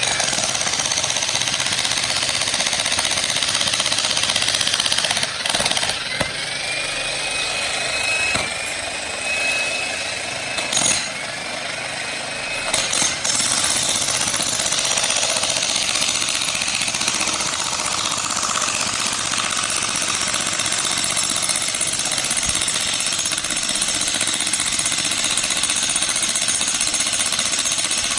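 Jackhammer breaking up rock, running almost continuously with a few short pauses and restarts in the first half.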